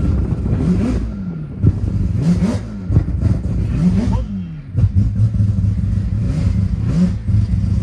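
Four-rotor 26B rotary engine of a Mazda RX-3 being driven hard: its pitch climbs and drops again and again, about once a second, with a few short sharp cracks in between.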